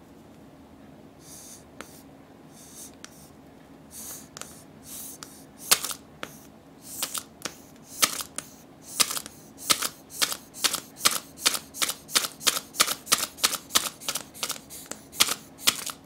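Squeeze toy frog with a rolled paper party-horn tongue, squeezed again and again: each squeeze gives a short puff of air and paper rustle as the tongue shoots out and curls back. Faint and sparse at first, then louder and quicker, about three a second over the last several seconds.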